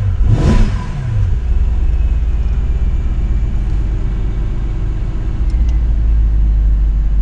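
Mercedes E550's V8 engine, heard from the driver's seat, revved in a quick throttle blip in the first second and then settling back to a steady idle.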